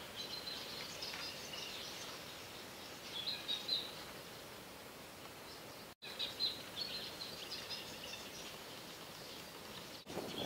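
Small birds chirping and twittering in high, short notes over a steady outdoor hiss, with louder flurries about three and six seconds in; the sound breaks off for an instant twice.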